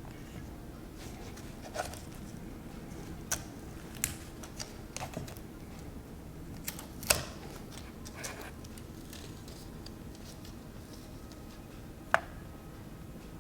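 Scattered sharp clicks and taps with light rustling as a product box and its contents are handled, over a faint steady low hum; the sharpest click comes about halfway through and another near the end.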